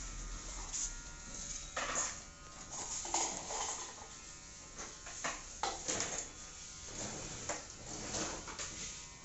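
Electric hair clippers buzzing steadily, with short irregular sounds of salon work and faint voices over the top.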